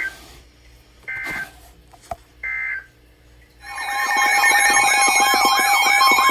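Three short bursts of Emergency Alert System data tones, the end-of-message signal, then about three and a half seconds in a loud warbling alert tone begins, its pitch sweeping up and down about two to three times a second: the start of the next tornado warning.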